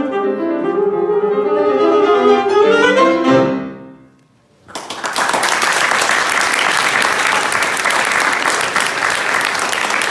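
Alto saxophone and piano end a piece, the last phrase rising to a final note that dies away about four seconds in. After a short hush, an audience breaks into steady applause.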